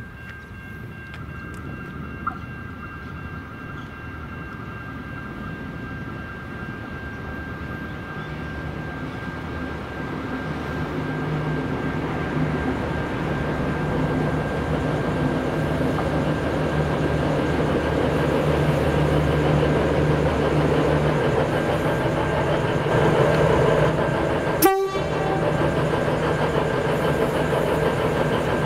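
V/Line VLocity diesel multiple unit approaching, the hum of its diesel engines and running gear growing steadily louder as it nears. A sharp click comes near the end, after which the train is running close by.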